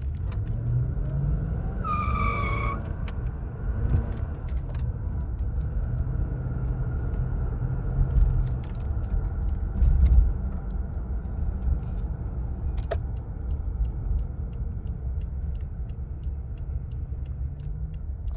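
Lexus SUV driving on the road under acceleration, heard from inside the cabin as a steady low engine and road rumble, with no transfer-case chain noise standing out after the chain repair. A brief high tone sounds about two seconds in.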